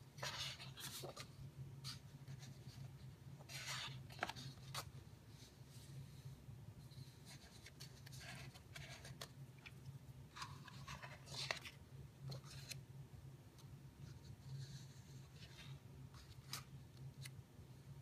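Pages of a large hardcover book being turned and smoothed by hand: faint paper rustles and swishes, several times, with a few light ticks. A low steady hum runs underneath.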